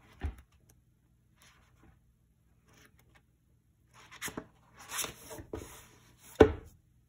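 Pages of a paperback book handled and riffled: a soft page turn just after the start, then a quick run of fanned page flips about four seconds in. Near the end comes one sharp thump, the loudest sound, as the closed book meets the wooden table.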